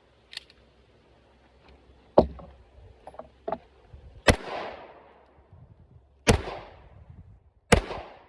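Three 9mm subcompact pistol shots, about one and a half to two seconds apart, each with a long echo, fired to check point of aim. A single sharp crack comes about two seconds in, before them.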